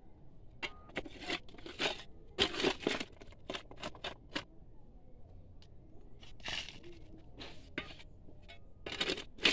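Hand digging in stony earth: a tool strikes and scrapes into dirt and gravel in irregular crunching strokes, about a dozen over the stretch.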